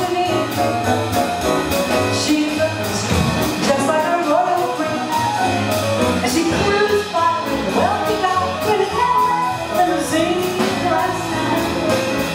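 A woman singing a jazz vocal live, backed by a trio of piano, upright double bass and drums, with cymbal strokes ticking along above.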